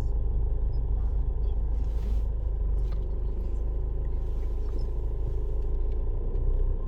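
Car driving steadily, a constant low rumble of road and engine noise.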